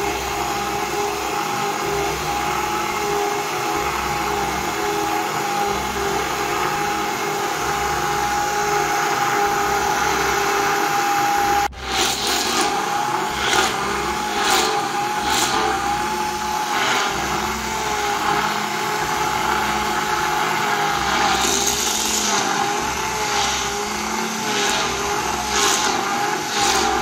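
Electric hand blender whipping fresh cream in a glass bowl, its motor running with a steady whine as the cream is beaten toward a fluffy, whipped state. About halfway through it cuts out for a moment and restarts, after which the pitch wavers and repeated clicks and rattles come through.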